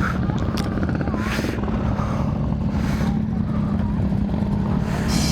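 Kawasaki Z300 parallel-twin motorcycle engine running at steady revs while riding, with wind rushing over the helmet-mounted microphone and a few short bursts of noise.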